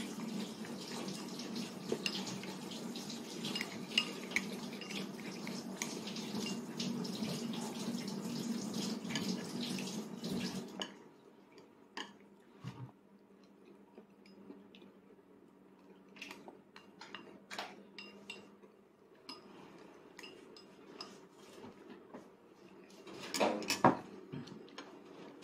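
Water running from a tap, steady for about eleven seconds, then shut off abruptly. After that come scattered light clinks of dishes and cutlery, with a short burst of louder clatter near the end.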